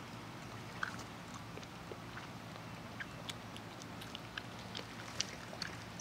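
Faint background ambience: a steady low hum with scattered faint short ticks and chirps.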